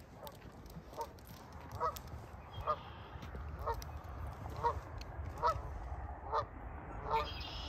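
Canada geese honking, a series of about eight single honks roughly one a second.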